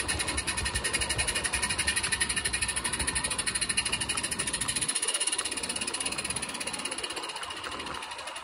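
A 16mm-scale Roundhouse live-steam model of a Vale of Rheidol locomotive running, its exhaust a rapid, even, hissing chuff. It grows gradually fainter over the second half.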